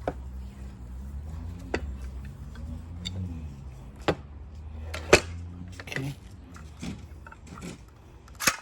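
Irregular sharp clicks and knocks, about eight of them, the loudest about five seconds in, from a Metabo HPT circular saw being handled and its parts moved, over a low steady hum.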